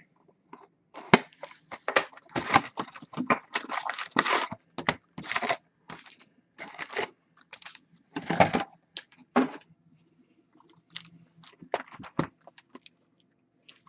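Plastic wrap being torn and crinkled off sealed boxes of hockey trading cards, in irregular rustling, crackling bursts that come thickest in the first half and again about two-thirds of the way through, then thin out.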